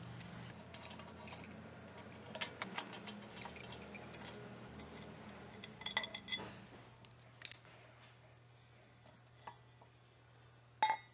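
Scattered light metallic clinks and taps of a socket wrench and steel bolts as the bolts come out of a power sweeper drum's end plate and the plate is lifted off, over a faint steady low hum.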